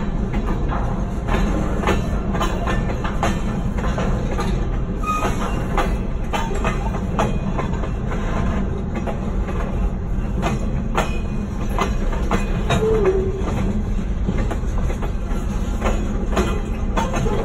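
Freight cars, covered hoppers and boxcars, being shoved across a grade crossing: steel wheels clacking irregularly over the rail joints over a steady low rumble.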